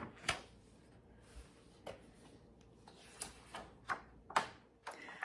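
Paper cross-stitch pattern being handled and its pages turned: a handful of short, soft rustles and flicks.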